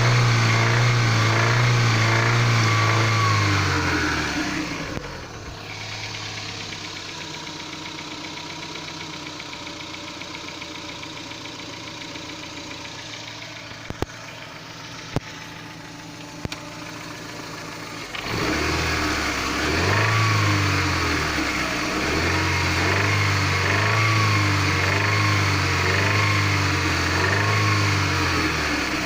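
Daewoo Nexia petrol engine being revved in repeated blips, dropping to a steady idle for about thirteen seconds in the middle, with a few sharp clicks, then blipped again over and over. The owner is trying to identify a knock coming from it.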